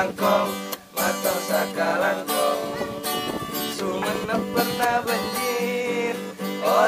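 Acoustic guitar strummed as song accompaniment. A young man's singing voice fades out about a second in and comes back near the end.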